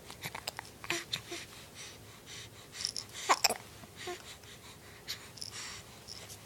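A person hiccuping again and again, with breathy sounds between the hiccups. About halfway through come two louder hiccups close together, each with a quick downward squeak.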